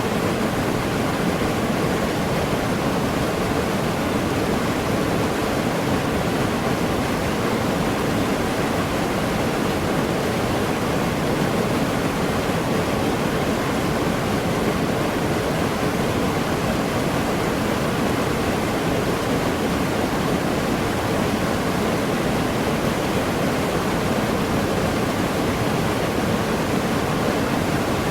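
Waterfall pouring steadily, a constant full rush of falling water with no breaks.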